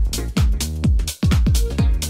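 Electronic dance music from a DJ set, driven by a steady four-on-the-floor kick drum at about two beats a second. The beat drops out briefly just after a second in.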